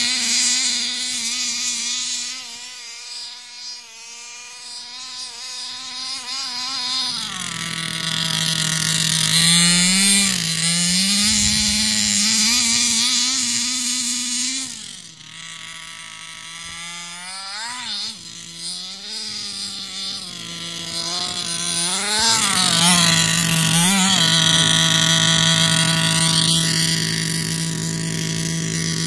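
HPI Baja 5B RC buggy's small two-stroke petrol engine running: a steady drone for the first seconds, then revving up and down again and again as it is driven, and settling back to a steady drone near the end.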